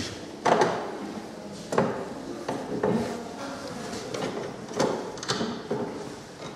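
Irregular knocks and thuds, about five in all, each with a short echo after it.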